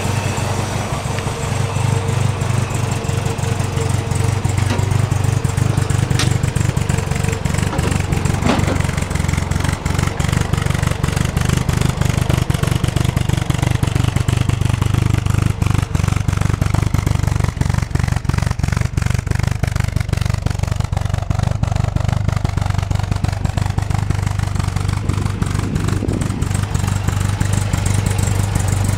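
MGA's 1800 cc four-cylinder engine running steadily with an even, low exhaust note.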